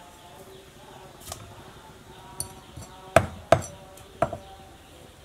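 A meat cleaver chopping through whole fish on a wooden chopping block: a light tap, then three heavy chops in quick succession about three seconds in.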